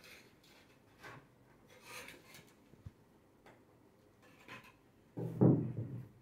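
Hands setting a plant in and pressing potting soil around it, giving short soft rustles and scrapes with a small tick near the middle. About five seconds in comes a louder dull thump that lasts nearly a second.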